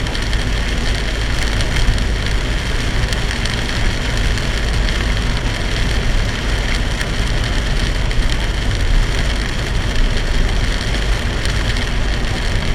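Torrential rain beating steadily on a moving car, over a low rumble of road and engine noise at expressway speed, as picked up by a dashboard camera.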